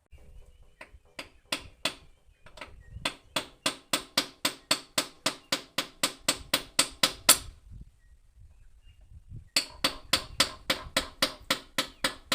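Rapid hammer blows on metal, about four a second with a ringing tone, in two runs separated by a pause of about two seconds.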